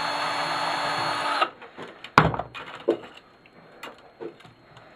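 Power drill running steadily with a whine, driving at a screw, then stopping about a second and a half in. A sharp knock follows and then a few lighter clicks and taps as parts are handled.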